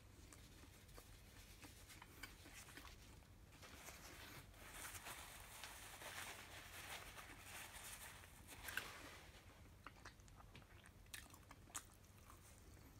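Faint, close-up chewing and biting of a burger, with small wet mouth clicks scattered through.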